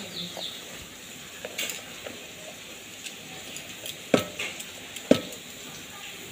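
Clinks and knocks on a stainless steel mixing bowl as gram flour (besan) is added to mashed boiled green banana: three short, sharp knocks, the two louder ones in the second half, over a faint hiss.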